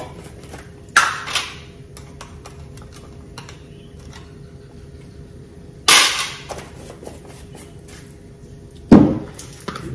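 Seasoning shaker shaken sharply over a bowl of fish: three short, loud bursts of rattling and knocking, about a second in, near six seconds and near the end, the last one deeper like a thump, with faint small ticks between.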